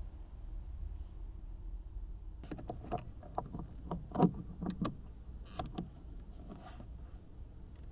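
Clicks and light plastic knocks of a small Coleman LED light being handled and hooked onto a car's ceiling grab handle, a quick scatter of taps with the loudest about four seconds in, over a low steady rumble.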